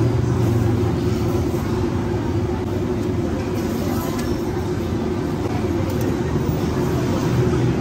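Steady low rumble of a noodle stall's kitchen equipment, with background voices.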